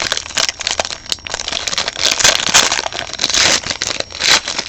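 Plastic and foil trading-card packaging being torn open and crinkled by hand, an irregular run of crackles and sharp rustles.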